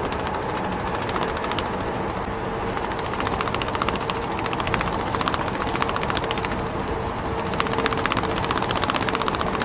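Toy tractor's small motor and plastic gears whirring with a rapid clicking rattle as it rolls over dirt, getting a little louder near the end.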